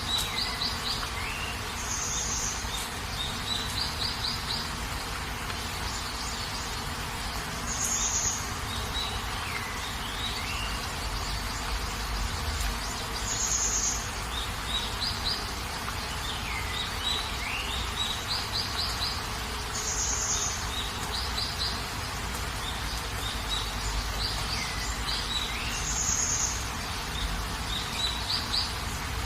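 Steady rain hiss with bird calls over it: high chirps, short trills and falling whistles, the same set of calls coming back about every six seconds.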